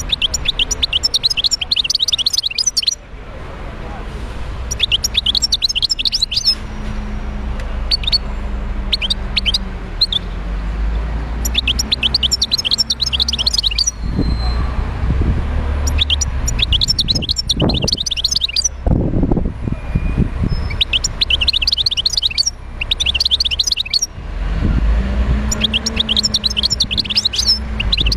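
Wild-caught European goldfinch singing in a cage: bursts of rapid, high twittering song phrases, each a second or two long, with short pauses between them.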